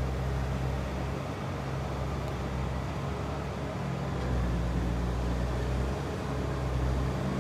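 Steady low rumble and hum of distant vehicles, a little louder from about four seconds in.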